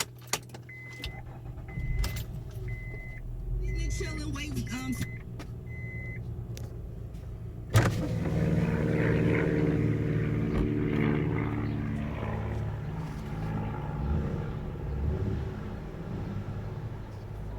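Inside a 2003 Acura MDX, a warning chime beeps six times about once a second while the 3.5-litre V6 runs. Then comes a sharp knock, and the engine pulls away with steady drive and road noise in the cabin. No metallic rattle is heard: the loose underbody shield has been clamped.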